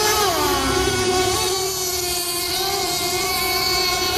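Model speedboat's motor whining at speed across the water; its pitch drops about half a second in, then holds steady.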